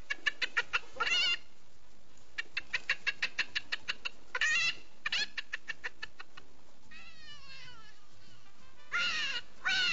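A man imitating animal calls with his tongue and mouth. First come runs of rapid, high chirping pulses, then a wavering call about halfway through, and near the end longer calls that fall in pitch.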